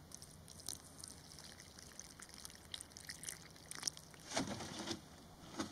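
Water poured from a plastic jug into a tarantula burrow in dry soil, faintly splashing and trickling as it floods the hole to flush the spider out. It is a little louder about four seconds in.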